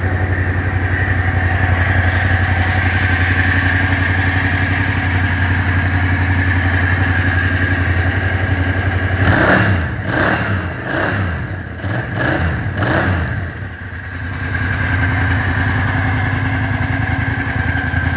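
Kymco AK 550 scooter's parallel-twin engine idling steadily. About nine seconds in, a few seconds of rustling knocks break over it, then the steady idle returns.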